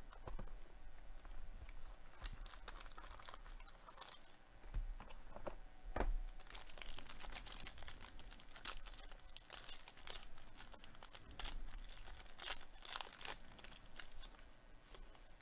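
Silver foil wrapper of a 2022 Topps Tier One trading-card pack crinkling and tearing as it is opened by hand, with irregular crackles throughout.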